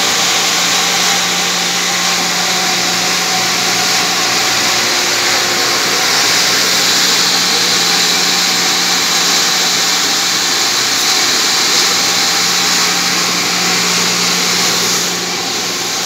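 Vertical water pumps and their electric motors running: a loud, steady hum with an even hiss over it.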